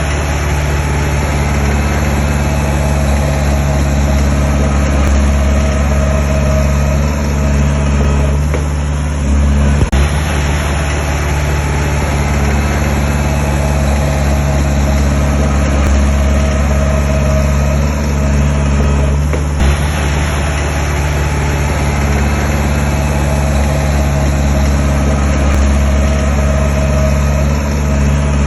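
Diesel engine of heavy earthmoving machinery running steadily at a constant speed, with a low, even drone.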